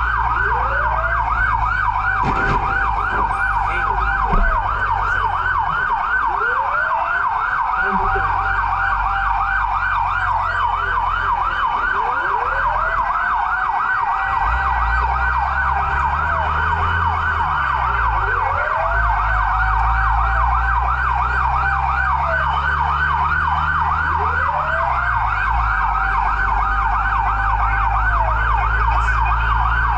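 Fire engine sirens running during an emergency response: a fast yelping siren repeating several times a second, overlaid by a slower siren that rises and falls about every four seconds. A steady low engine rumble runs underneath.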